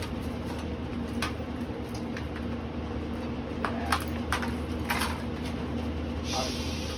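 A steady low hum with a handful of short sharp knocks and clicks at uneven intervals, and a brief hiss near the end.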